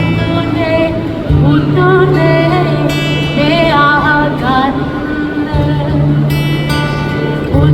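A song: a voice singing a melody over plucked guitar and long held bass notes.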